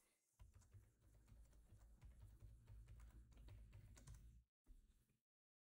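Faint computer keyboard typing: a run of soft key clicks as a password is typed, over a low hum that stops about four and a half seconds in.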